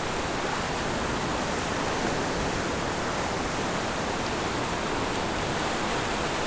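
Steady rush of small breaking surf waves and foamy wash in the shallows.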